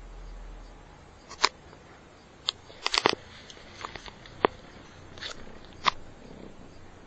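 Handling noise from a phone brought up against a cat's fur: a scatter of sharp clicks and knocks, with a cluster of them about three seconds in.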